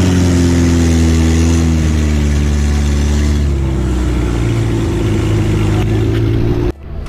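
An engine running loudly and steadily, its pitch sagging and then settling at a new level, until the sound cuts off abruptly shortly before the end.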